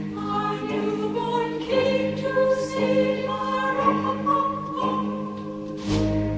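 Music: a choir singing a melody over an orchestral backing, with a low boom near the end.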